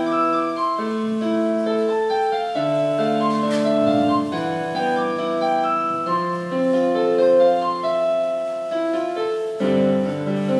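Piano playing a slow instrumental passage of held chords with a melody of sustained notes above them; no voice.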